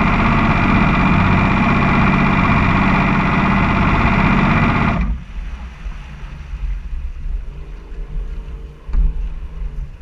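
A racing powerboat's engine running steadily at low speed, then cut off abruptly about halfway through. It is followed by water and wind noise as the boat drifts in, and a single knock near the end.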